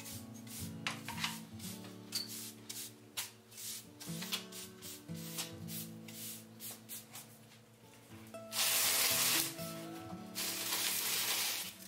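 Push broom sweeping a concrete floor in short, quick strokes, over background music with guitar; near the end come two longer, louder scraping hisses.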